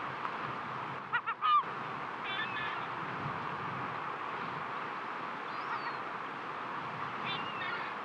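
Steady wash of sea waves on a rocky shore. About a second in, a bird gives three loud calls in quick succession, and fainter bird calls follow a few times later.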